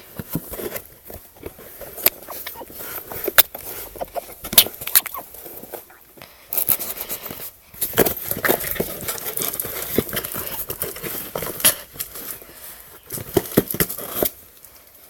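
A cat playing with a cardboard box: irregular scratches, taps and rustles of paws and claws on the cardboard, busier about halfway through.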